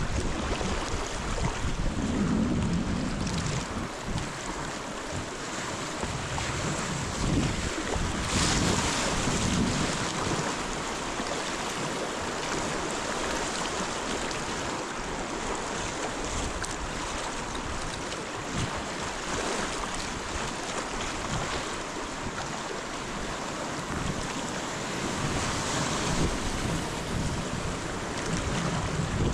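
River water rushing over small rapids, a steady hiss that swells briefly about eight seconds in and again near the end.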